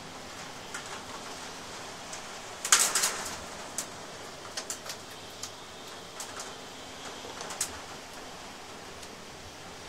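Heavy rain in a storm, a steady hiss with scattered sharp ticks of drops striking a nearby surface, the loudest cluster of hits about three seconds in.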